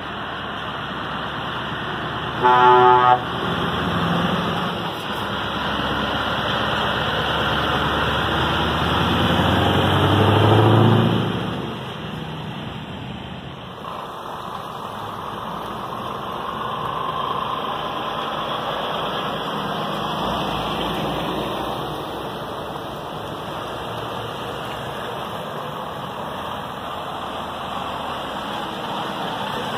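Diesel lorry engines pulling away, with a short, loud truck horn toot about two and a half seconds in. The engine noise builds to its loudest around ten seconds in, then falls back to a steadier engine hum as other lorries move off.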